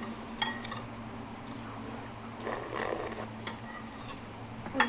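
A few scattered light clinks and taps of cutlery on dishes, with a brief scraping patch near the middle, over a steady low hum.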